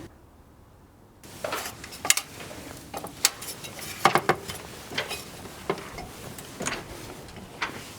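Irregular light metallic clinks and knocks, a dozen or more spread unevenly, beginning about a second in after a short quiet stretch.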